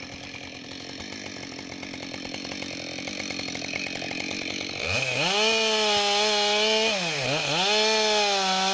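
Husqvarna 572XP two-stroke chainsaw idling for about five seconds, then revved suddenly to full speed and sawing into a log, its high-pitched tone holding steady with two brief dips in pitch.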